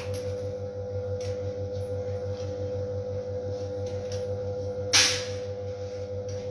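Siemens Siwamat Plus 573 front-loading washing machine running with its drum turning a load of laundry: a steady motor whine over a low, evenly pulsing hum. Two sharp knocks stand out, one at the start and a louder one about five seconds in.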